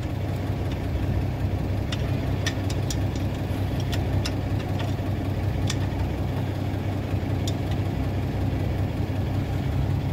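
Mercedes truck diesel engine idling steadily, a low even hum, with scattered light metallic clicks from wrenches working on the fuel-injector lines.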